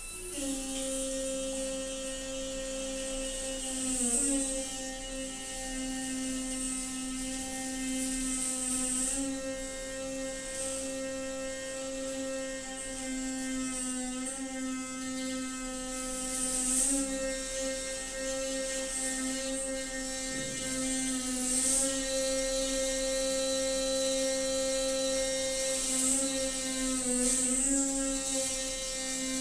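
Noisy water pipe singing: a steady droning tone with a stack of overtones that wavers and dips in pitch now and then, with bursts of rushing hiss every few seconds.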